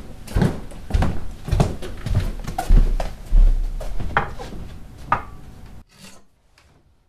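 A run of wooden knocks and thumps, about two a second, some with a deep low thud, cutting off suddenly about six seconds in; a few faint clicks follow.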